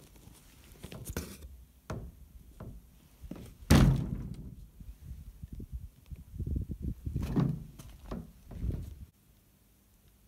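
Irregular knocks and thuds of something wooden rattling, the loudest about four seconds in. They stop abruptly about nine seconds in.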